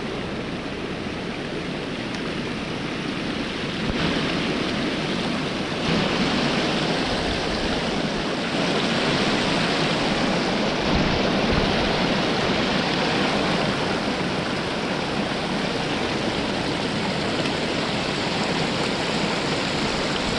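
Steady rush of flowing river water, an even hiss that gets a little louder after about four seconds.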